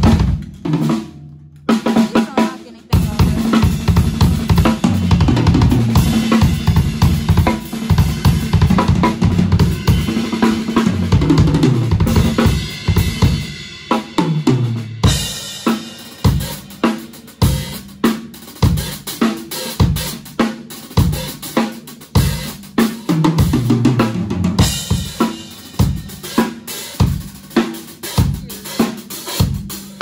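Acoustic Pearl drum kit played hard: bass drum, snare, toms and cymbals in busy fills, with a short break near the start. From about halfway it settles into heavy accents about once a second with cymbal crashes.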